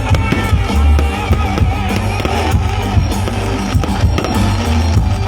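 Loud music with a drum beat and a heavy bass line.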